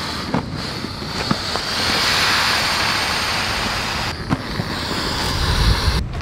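Air rushing out of an Intex Explorer two-person inflatable kayak as it is knelt on and pressed flat to deflate it. The rush swells loudest in the middle, with a few light knocks and crinkles from the vinyl hull being handled.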